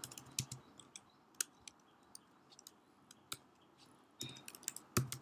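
Computer keyboard typing: irregular, separate keystrokes with short pauses between them.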